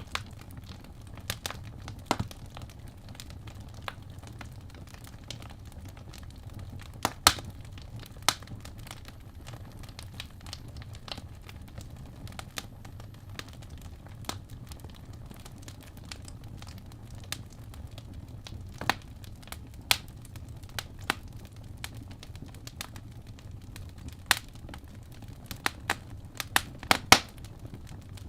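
Logs burning in a fireplace, crackling with irregular sharp pops over a low steady rumble of the flames; a few louder snaps come about seven seconds in and again near the end.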